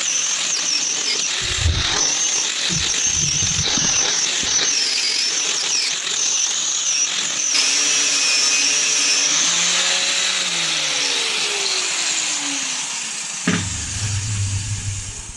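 Handheld power tool running with a high, wavering whine as it works on rusty chassis metal. It is switched off at the very end and spins down.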